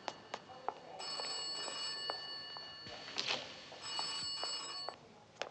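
High, bell-like electronic ringing made of several steady tones at once. It starts about a second in and is held for about two seconds, then sounds again for about a second near the end, over scattered faint clicks.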